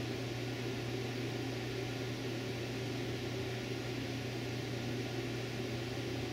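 Steady low hum with an even hiss over it: background room tone, unchanging.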